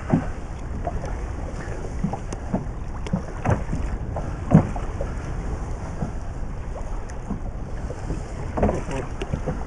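Wind buffeting the microphone over water lapping against an inflatable boat, with a few sharp knocks, the loudest about halfway through.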